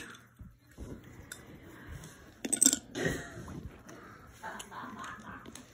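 Loose plastic LEGO bricks clicking and clattering as a hand picks through a pile of pieces, with the loudest cluster of clicks a little past halfway.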